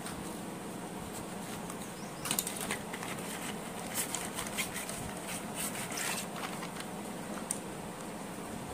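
Wooden pencils clicking against each other and rustling in their cardboard box as a handful is pulled out, in a busy run of clicks from about two seconds in to about six seconds in. A steady low hum lies under it throughout.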